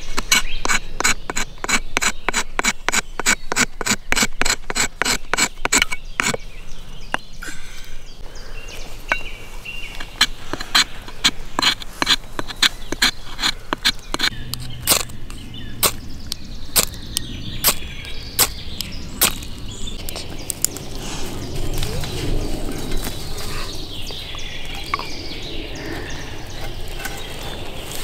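A ferro rod (fire steel) being scraped to throw sparks onto bark tinder to light a campfire: quick, even rasping strokes, about four a second, for the first several seconds, then slower, irregular strikes.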